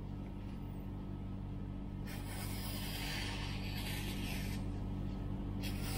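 A sharpened Japanese knife slicing through a sheet of magazine paper in a sharpness test: a long smooth hiss of the cut starting about two seconds in, then a second cut beginning near the end. A steady low hum runs underneath.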